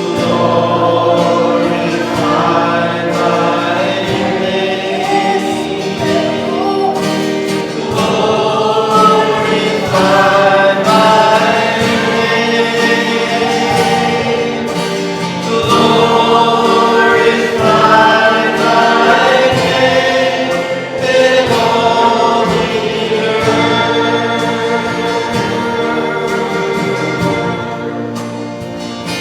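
A choir sings a slow worship chorus over instrumental accompaniment, with long held notes.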